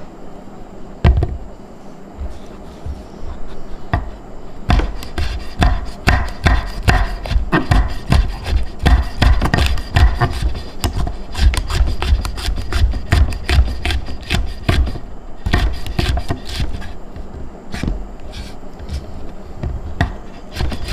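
Kitchen knife chopping on a wooden cutting board: fast runs of sharp knocks, beginning about a second in and growing busier a few seconds later.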